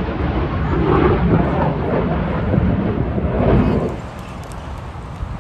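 Fighter jet in flight, its engine noise loud and low, swelling in waves. It drops away abruptly about four seconds in, leaving a much fainter background.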